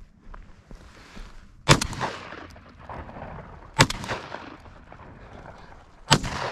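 Shotgun fired three times, about two seconds apart, each shot followed by a short fading echo.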